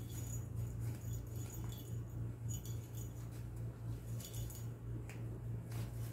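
Kittens playing and tussling on puppy pads in a cardboard pen: light scratching and rustling with faint clinks, over a steady low hum.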